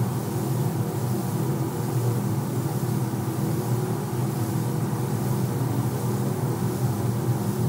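Steady machine hum with a constant hiss of compressed air from a spray gun applying coating in a paint booth.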